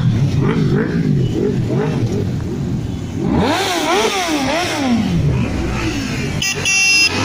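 Motorcycle engines revved repeatedly, the pitch rising and falling with each blip of the throttle, with a bigger rev climbing and falling back about halfway through. A short steady high tone sounds near the end.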